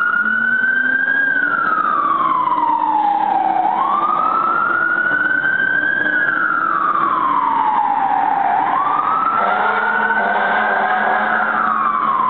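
Fire truck siren wailing: the pitch climbs quickly, then slides slowly down, repeating about every five seconds for two and a half cycles. A second, lower steady tone joins about nine seconds in.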